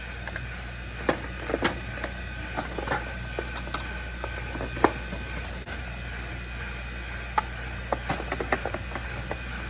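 Scattered small clicks and knocks of parts being handled while a defrost timer is fitted into a refrigerator, with a sharper knock about five seconds in, over a steady low hum.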